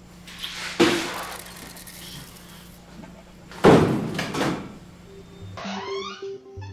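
Two heavy bangs, the second louder, about three seconds apart, each ringing briefly in a small room. Soft music with a repeating note starts near the end.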